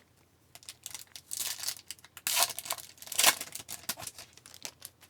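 Foil wrapper of a 2019-20 Upper Deck Series 1 hockey card pack being torn open and crinkled in a run of short, irregular rustles, loudest in the middle.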